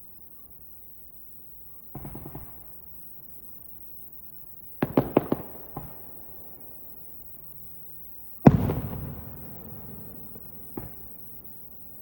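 Aerial fireworks shells bursting. There is a short crackle about two seconds in, then a quick run of four or five sharp bangs near the middle. The loudest boom comes about eight and a half seconds in and dies away over a couple of seconds, and a small pop follows near the end.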